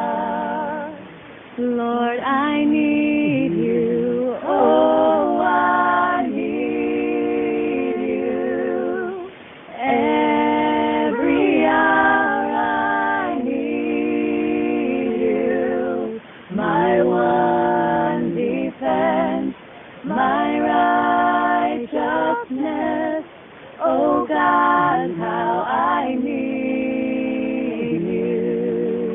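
A woman singing a worship song unaccompanied, in long held phrases with vibrato and short breaks between them.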